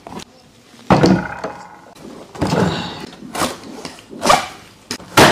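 Cardboard box being cut open with a box cutter and its flaps pulled open: a series of sudden scrapes and thuds about a second apart.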